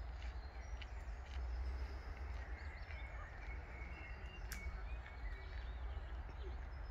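Faint bird calls and chirps over a steady low rumble of outdoor ambience, with one sharp click about four and a half seconds in.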